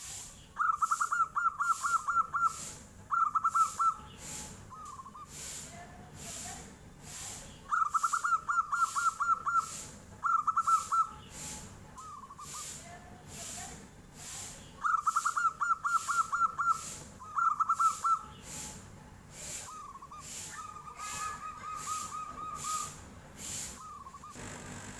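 Zebra dove (perkutut) singing its clear, flute-like cooing song. Each phrase is a long rapid trill, then a shorter trill, then a single coo, repeated about every seven seconds. A faint high-pitched pulse sounds about twice a second behind it.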